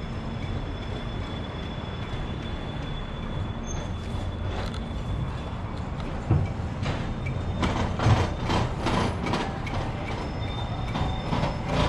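A vehicle's steady low rumble, with a series of sharp knocks and clacks from about six seconds in.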